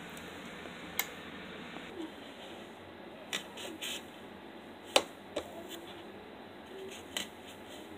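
Scattered sharp clicks and knocks, about six in all, the loudest about five seconds in, over a faint steady hiss: handling noise of a phone as it is filmed with and hands brush against it.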